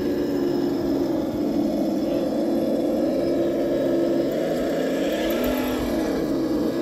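Traxxas TRX-4 RC crawler's electric motor and geartrain whining steadily as it drives. The pitch dips briefly near the end and then recovers.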